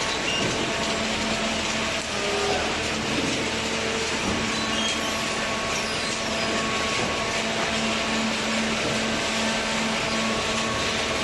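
Vertical hydraulic baler running: a steady machine hum with one constant pitch.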